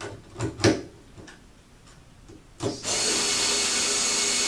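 Small hand-held electric screwdriver driving a Phillips screw into a screen-mount bracket arm. A few light clicks in the first second, then the motor runs steadily for about two seconds and stops near the end.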